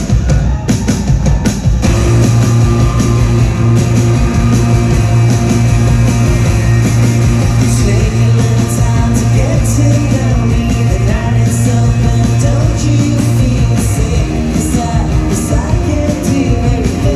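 Live rock band playing loudly, with electric guitars, bass and drums and a singer's voice over them.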